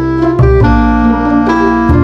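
Instrumental background music with held chords over a steady bass line. The chord changes about half a second in and again near the end.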